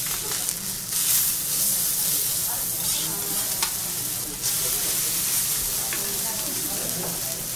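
Fish fillet sizzling in oil on a hot teppanyaki griddle: a steady high hiss that swells about a second in, with a few faint clicks.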